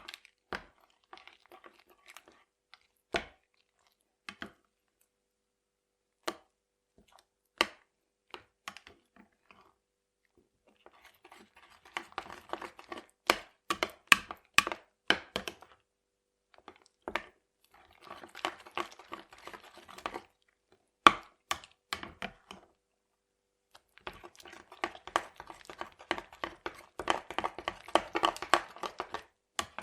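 A small spatula stirring and folding crunchy slime packed with tiny bells, beads and sequins: scattered sharp clicks at first, then three stretches of dense crackling, the longest near the end.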